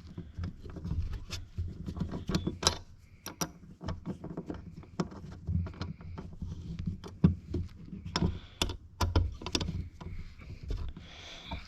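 Irregular small metallic clicks and light knocks as an Allen wrench tightens the sliding part of a mini wood lathe against the workpiece, over a low hum.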